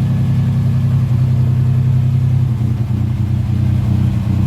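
The 1938 SS Jaguar 3½ Litre's overhead-valve straight-six engine idling steadily on a test run after its rebuild.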